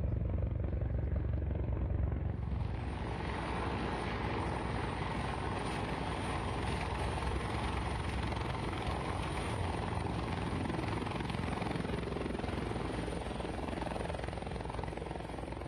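Military utility helicopter flying close by, its rotor beating steadily under a rush of rotor and turbine noise. For the first two seconds or so it is mostly a deep rumble, then it fills out with a steady high turbine whine.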